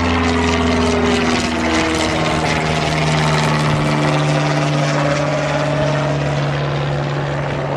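Propeller aircraft engine running loud and steady as a plane departs, its engine tone shifting about two and a half seconds in.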